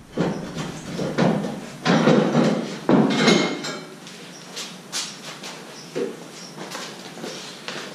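Chrome steel rear bumper of a Ram pickup clanking and knocking as it is worked loose and pulled off the hitch. There are four loud knocks in the first three seconds, then lighter clinks and taps.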